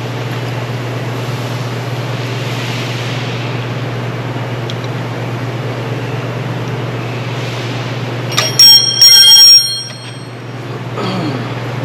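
Steady low machine hum throughout. About eight and a half seconds in, a second-long burst of loud metal-on-metal clanks rings out.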